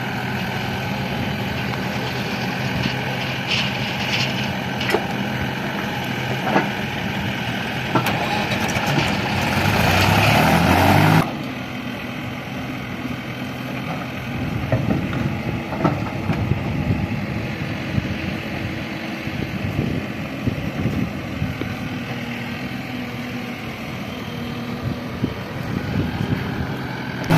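Heavy diesel machinery engine running, with scattered short knocks. About nine seconds in it rises in pitch and loudness, as if revved under load, then cuts off abruptly at about eleven seconds. After that a quieter, steady engine sound carries on.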